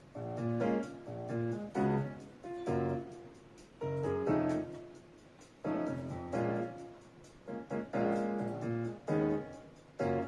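Instrumental music led by a piano-like keyboard playing chords in short phrases, with no vocals. It is played back through JBL Quantum Duo PC speakers as a sound test.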